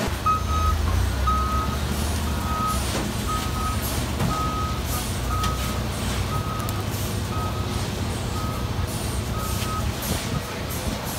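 Forklift reversing alarm beeping about once a second, one steady high tone, over the low, steady running of the forklift's engine. The beeping stops near the end.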